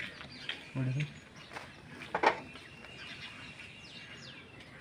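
Small birds chirping repeatedly, with a brief low voice sound about a second in and a sharp knock, the loudest sound, a little after two seconds.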